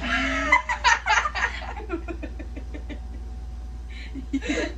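A child laughing: a loud squealing burst of laughter at first, then quiet giggling in short repeated breaths.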